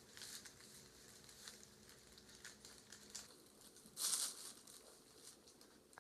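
Faint rustling and crinkling of a bag as a cat pokes its head around inside it, with a louder crinkle about four seconds in.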